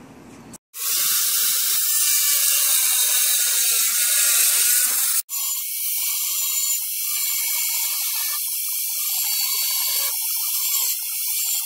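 Angle grinder cutting through 1/2-inch HardieBacker cement board: a loud, high-pitched grinding that starts about half a second in, breaks off for an instant just past the middle, then resumes.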